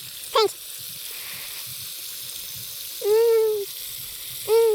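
Steady sizzling hiss of food frying in a pot over a campfire, broken by three short pitched animal calls: a quick falling one near the start, a longer arched one about three seconds in, and a short one at the end.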